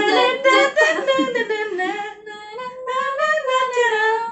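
Women singing without backing music, in long, bending held notes. It dips quieter for a moment about two seconds in.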